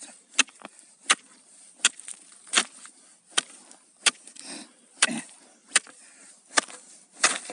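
A hand tool chopping ice in steady repeated strikes, about ten sharp blows roughly every 0.7 seconds, widening an ice-fishing hole that is too narrow for a burbot to pass through.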